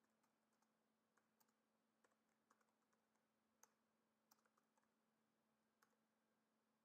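Faint computer keyboard keystrokes, scattered and irregular, about a dozen over a few seconds, over a faint steady hum.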